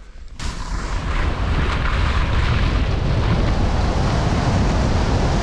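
Wind rushing over a head-mounted action camera's microphone as a skier picks up speed downhill, with the skis running over snow. It starts suddenly about half a second in and then holds loud and steady.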